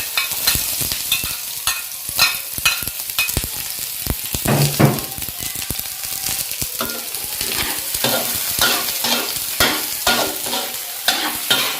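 Garlic and onion sizzling in a little oil in a pan, with a utensil stirring them and clicking and scraping against the pan many times.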